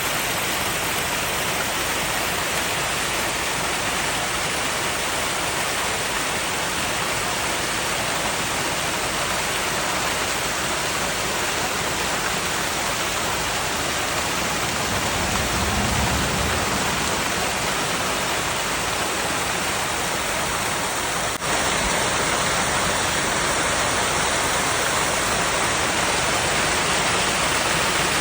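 Small waterfall cascading over rocks: a steady, full rush of falling and splashing water. There is a momentary break about three quarters of the way in, after which it is slightly louder.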